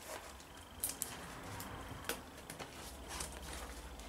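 Cardboard box and packaging being handled: faint rustling with a few light knocks and taps, the sharpest about a second in and again about two seconds in.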